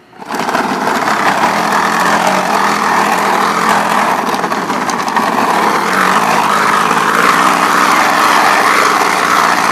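A bottle fixed against the spokes of a BMX bicycle wheel, flicked by the spokes as it rides, making a loud continuous buzzing rattle in imitation of a motorbike engine.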